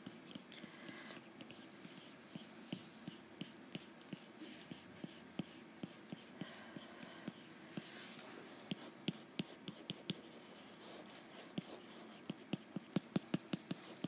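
Apple Pencil tip tapping and stroking on a tablet's glass screen during digital shading: scattered light taps, with a quick run of taps near the end.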